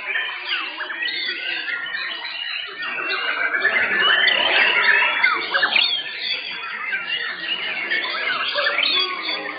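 Several white-rumped shamas singing at once, a dense tangle of overlapping whistled phrases and chatter with no pause, busiest a few seconds in.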